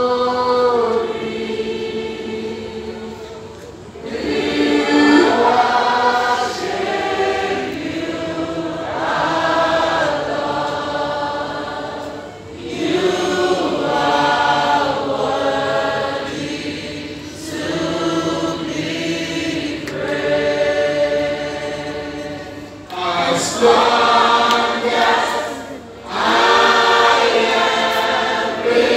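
A choir singing a gospel worship song in sustained, swelling phrases of a few seconds each, with lyrics giving glory to God.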